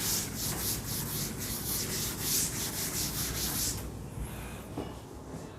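Rhythmic rubbing strokes on a surface, about three a second, which stop about four seconds in.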